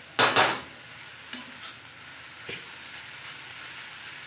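Metal spatula stirring and scraping cabbage thecha in a pan over the steady sizzle of frying, as the cabbage is fried dry in oil. One loud scrape comes just after the start, followed by a couple of lighter taps.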